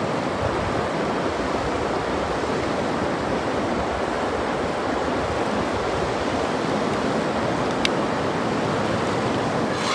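Steady rush of river water flowing over rocks, with one small click near the end.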